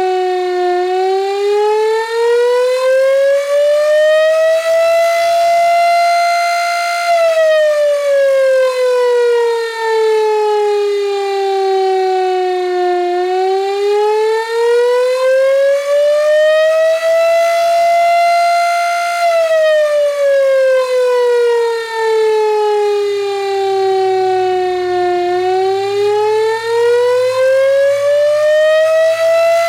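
Gryphon BS 2048 electric siren sounding the attack signal: its tone rises and falls over and over, about six seconds up and six seconds down.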